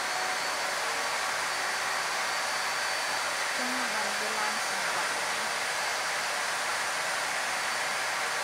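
A steady, even hiss with no clear rhythm or change, and a faint brief pitched sound about four seconds in.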